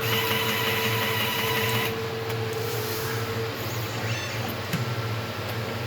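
Automated soldering robot's motors whirring as the machine moves, over a steady low hum. A high whine stops about two seconds in, and a mid-pitched tone stops about a second and a half later.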